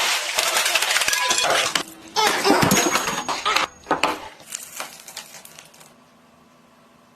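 Clattering and clinking of small hard objects: a dense run of sharp knocks that thins out after about two seconds and dies away over the next few.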